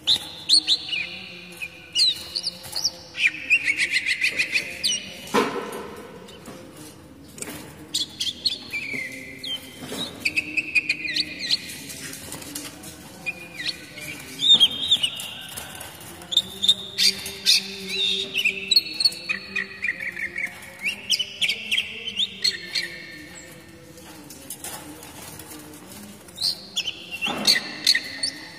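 Oriental magpie-robin singing in phrases of varied whistles, rapid chattering notes and trills, with short pauses between phrases. A few sharp knocks fall between the phrases.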